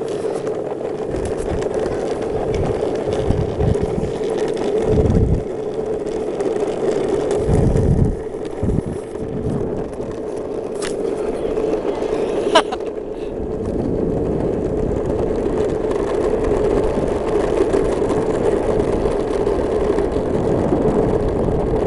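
Longboard with orange urethane wheels rolling fast over asphalt: a steady wheel hum mixed with road and wind noise, with a few low rumbling surges and a sharp click about halfway through.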